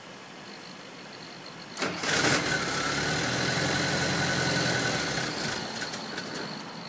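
1978 Volkswagen Westfalia's air-cooled flat-four engine is cranked and catches about two seconds in. It runs for a few seconds, then dies away near the end: a stall just after starting, part of the van's hard-starting problem.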